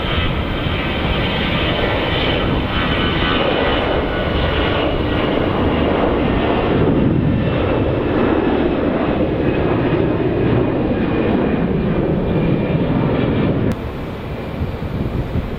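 Airliner's engines running loud, a steady rushing noise that swells over several seconds and then drops off abruptly near the end.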